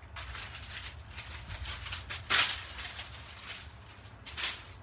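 Handling noises and footsteps as a paper or cardboard target is carried and set in place, with one loud, brief rustling noise about two and a half seconds in and a smaller one near the end.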